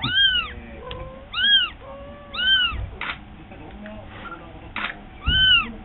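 Young calico kitten meowing four times in high, thin calls that rise and fall in pitch, with a few faint clicks in between.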